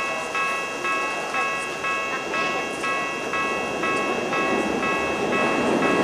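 Japanese railway level-crossing alarm ringing, a bright electronic bell repeating about twice a second. A low rumbling noise builds beneath it near the end.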